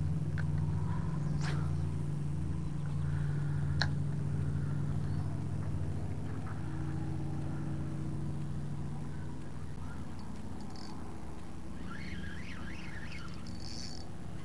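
An engine idling steadily with a low hum that fades away about ten seconds in. A couple of sharp clicks come in the first four seconds, and high chirps near the end.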